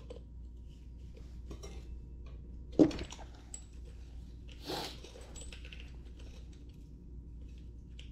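Metal tools and small wheel parts clinking and knocking during wheel disassembly, with one sharp knock about three seconds in and a smaller clatter near five seconds.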